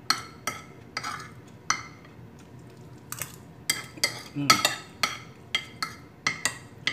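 Metal spoon and fork clinking and scraping against a plate, about fifteen quick clinks at an uneven pace, loudest about four and a half seconds in, as the last of the food is scooped up.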